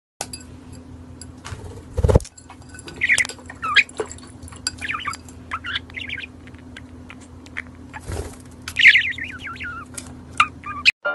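A small white pet bird chirping and warbling in short scattered phrases of high, quickly wavering calls. Two dull thumps come about two seconds in and about eight seconds in, over a steady low hum.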